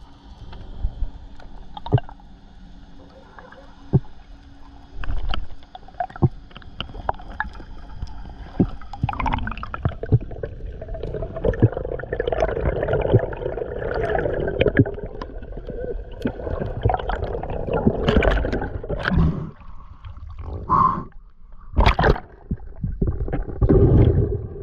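Underwater sound picked up through a diving camera's housing. First come scattered sharp clicks and knocks. From about a third of the way in, a rushing, gurgling water noise builds as the diver moves toward the surface, and a few louder bursts follow near the end.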